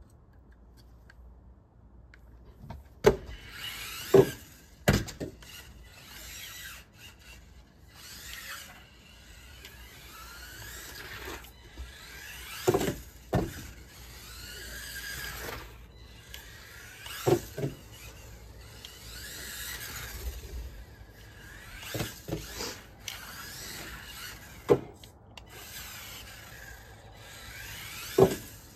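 Losi Micro-B micro RC buggy's electric motor and gears whining, the pitch rising and falling as it speeds up and slows down on a wooden deck. Sharp knocks every few seconds as the car crashes and bounces.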